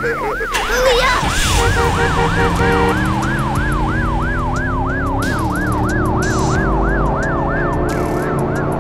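Cartoon emergency-vehicle siren, a fast rising-and-falling yelp repeating about three times a second, with lower sliding tones underneath.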